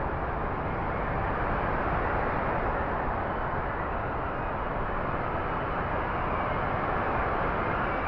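Strong hurricane-force storm wind blowing steadily, a dense rushing noise that swells only slightly.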